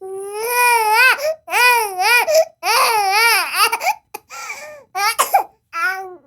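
Baby crying: a run of loud wailing cries, each bending up and down in pitch, the first three long and the last few shorter, with brief catches of breath between them.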